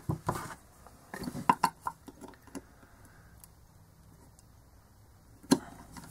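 Hard plastic loudspeaker housing and pliers being handled on a workbench. A cluster of light clicks and knocks comes in the first two and a half seconds, then a single sharper knock about five and a half seconds in.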